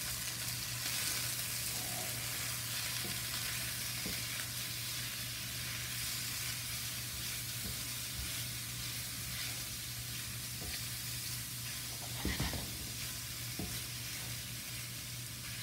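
Diced chicken searing in a little oil in a stainless steel skillet, sizzling steadily as it browns. A spatula knocks and scrapes against the pan a few times, most clearly about twelve seconds in.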